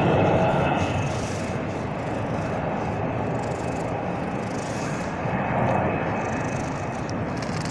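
A contented cat purring close to the microphone as a steady low rumble while it is brushed with a nekojasuri, with the faint rasp of the brush strokes through its fur every second or so.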